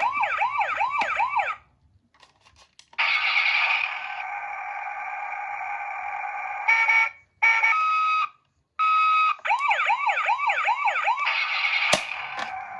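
Toy ambulances' electronic sirens switching modes: a fast up-and-down wail that stops abruptly, then after a short pause steady electronic tones and a hi-lo two-tone pattern that cut in and out. The fast wail returns, then settles back into a steady tone, with a sharp click near the end.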